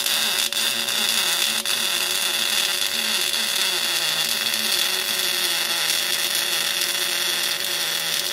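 Spool-gun MIG arc welding a lap joint in 1.2 mm aluminium plate with 0.8 mm wire on an R-Tech MIG180: the arc runs steadily and stops near the end. The welder judges this setting a little cold, needing slightly more power or slightly less wire.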